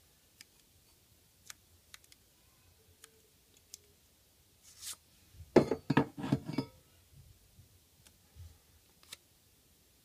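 Paper being handled and creased by hand: a few light clicks and rustles, with a louder run of crinkling about six seconds in.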